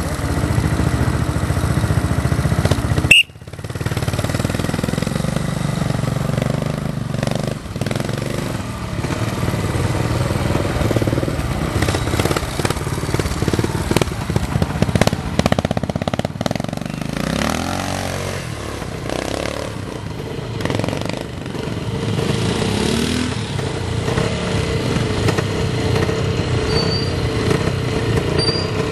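Classic trials motorcycle engine running and being revved up and down as the bike climbs a wooded section. The sound breaks off abruptly about three seconds in, then picks up again.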